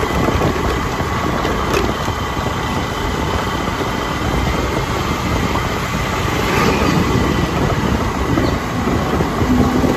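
Steady low rumble of engine and wind noise from riding in a moving vehicle, with a faint steady high whine.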